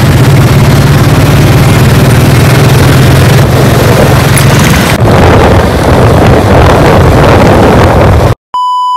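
Motorcycle engine running while riding along a road, with heavy wind buffeting the microphone. A steady electronic beep tone cuts in just before the end.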